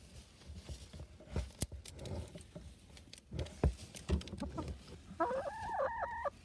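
Hens pecking and scratching about in straw bedding in a wooden box: irregular taps, knocks and rustles. About five seconds in, a hen gives one drawn-out, wavering call.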